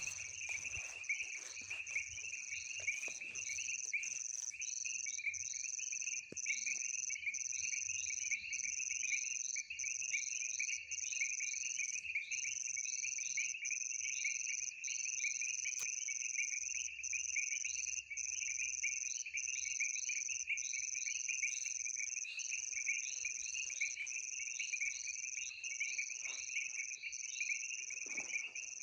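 Night chorus of frogs and insects: a continuous high-pitched trill broken by brief gaps about once a second, over a dense, rapidly pulsing chorus.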